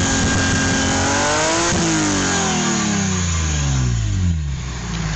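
BMW E36 M3 straight-six through a Supersprint exhaust with the catalytic converter replaced, being revved: the revs are held, climb briefly, then fall back over about three seconds and settle to idle near the end.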